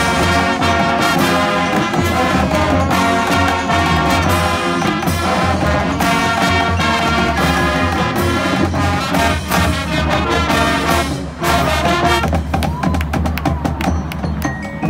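Marching band playing a field show: brass holding full chords over drums and the front ensemble. After a brief drop about eleven seconds in, the texture thins to sparser percussion hits.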